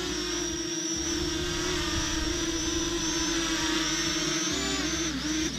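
Small quadcopter drone hovering close by, its propellers giving a steady whine with a high overtone. Near the end the pitch wavers as the drone is lowered onto an outstretched hand for a hand landing.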